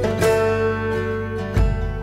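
Background music led by a plucked acoustic guitar, with fresh notes struck about a quarter of a second in and again near the end.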